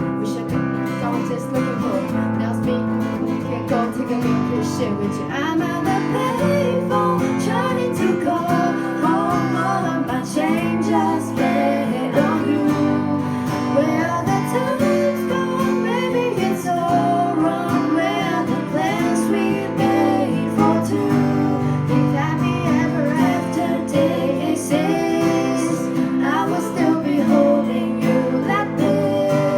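Acoustic guitars playing a wordless instrumental passage of the song: strummed chords with a bending melody line above them.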